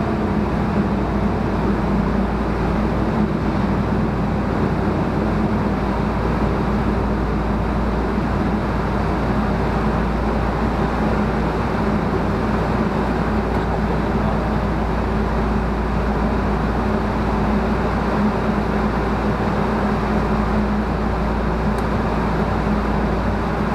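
Steady machinery drone with a constant low hum, unchanging in pitch and level throughout.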